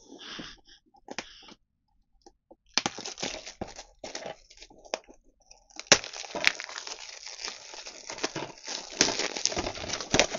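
Clear plastic shrink-wrap being torn and peeled off a DVD case: scattered crinkling and crackling at first, a sharp snap near the middle, then dense continuous crinkling.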